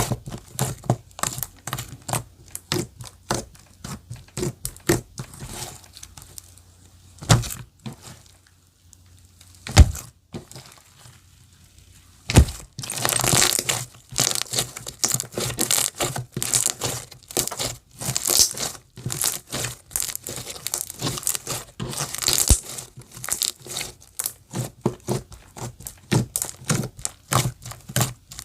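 Clear slime being squished and pressed by hand: a rapid run of small sticky pops and crackles, with a quieter stretch in the middle broken by three sharp thumps.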